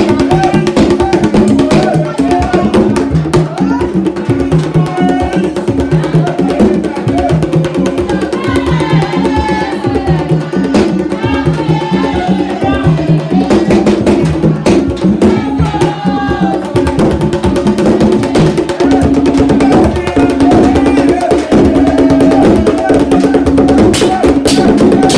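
Vodou drums playing a fast, steady rhythm, pitched drum tones repeating under sharp clicking strokes. A group of voices sings over the drums through the middle stretch.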